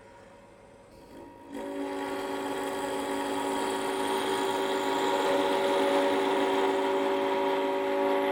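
A turning tool cutting black walnut on a running wood lathe: a steady whine with a hiss, starting about a second and a half in and cutting off abruptly at the end.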